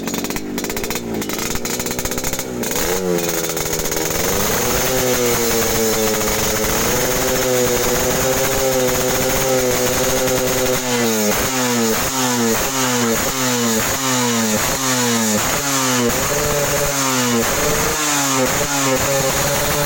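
Yamaha RX-King's single-cylinder two-stroke engine, set up for the raspy 'ngorok' (snoring) exhaust note, being revved. It climbs from idle and holds a steady raised rev, then about halfway through it is blipped about once a second for several short revs, and it settles back to a steady rev near the end.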